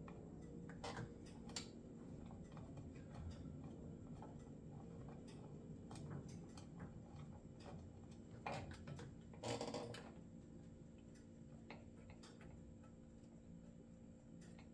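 Faint irregular clicks and light metal taps of a chainsaw bar and chain being fitted and tensioned by hand with a screwdriver, with a louder clatter about nine and a half seconds in.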